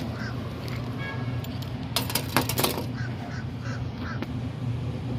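A bird calling in runs of short, evenly repeated calls over a steady low hum, with a few sharp clicks and knocks about two seconds in.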